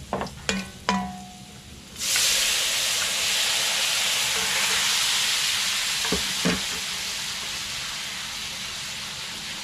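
A metal ladle clinks against a wok three times, then cooked pork chops are dropped into the hot wok of garlic and oil about two seconds in, setting off a loud, steady sizzle that slowly eases. Two knocks come midway.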